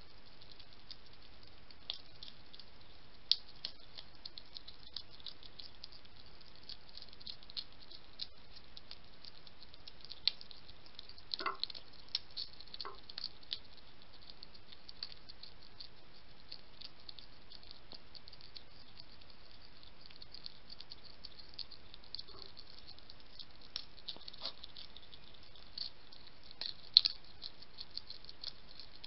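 European hedgehogs crunching dry food pellets from a plate: a dense, irregular run of small clicks and rattles, with a few louder clicks, over a steady hiss.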